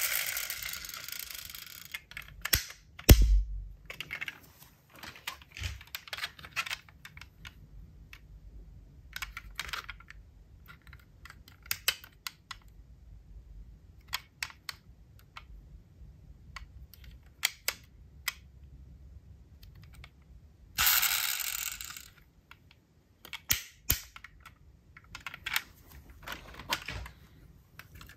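Diecast metal toy cars being handled: scattered light clicks and taps throughout, with a heavier thump about three seconds in. Two rushes of noise, about a second and a half each, come at the very start and again about three-quarters of the way through.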